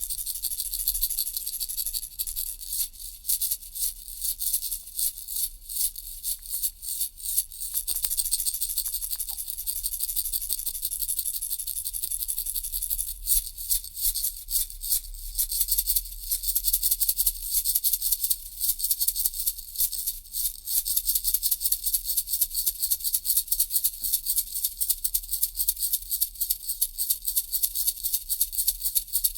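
Baby rattle toy shaken continuously: a dense, rapid rattling. The shaking is uneven at first and settles into a fast, even rhythm about two-thirds of the way through.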